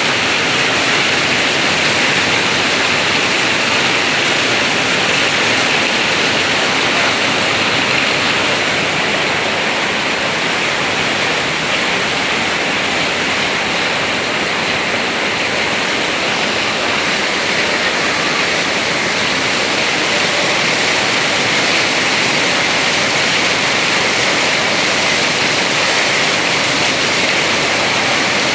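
Heavy rain pouring down in a rainstorm: a dense, steady hiss of downpour that does not let up.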